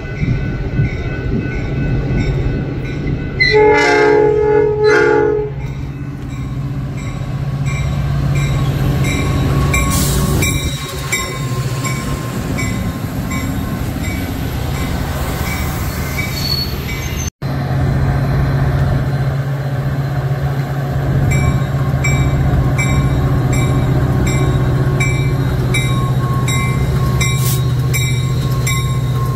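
A train horn sounds for about two seconds a few seconds in, the loudest thing here, over the steady rumble of a passing train. A grade-crossing bell dings about twice a second throughout, and the sound drops out for an instant about two-thirds of the way through.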